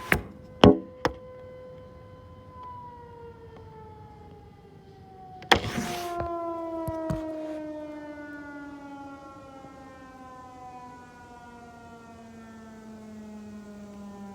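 Federal Signal Eclipse 8 outdoor warning siren winding down at the end of its weekly test: its steady tone begins falling about two and a half seconds in and keeps gliding lower, with a few sharp clicks near the start and a loud burst of noise about five and a half seconds in.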